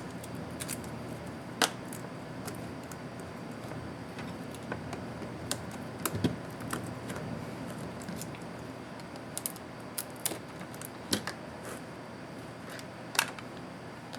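Scattered small clicks and taps of Lenovo IdeaPad S210 laptop parts being handled and pried during disassembly, irregular, with a sharper click about one and a half seconds in and another near the end, over a steady low background hum.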